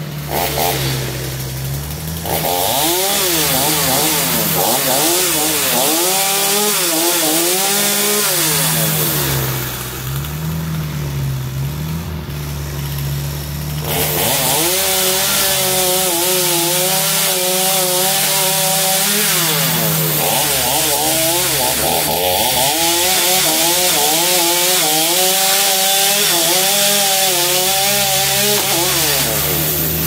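Chainsaw cutting into a small hickory tree, running at high revs in two long spells, its pitch wavering as it bogs and recovers in the cut. A steady lower engine drone runs underneath.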